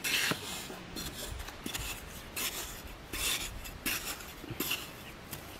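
A flat digging blade on a long bamboo handle scraping and jabbing into hard, dry soil, about seven short scraping strokes in quick succession.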